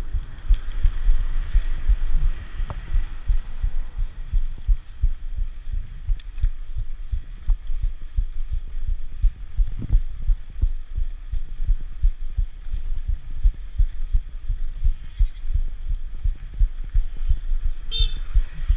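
Wind buffeting the microphone of a camera on a moving bicycle: a constant, irregular low rumble of thumps. A short high beep sounds near the end.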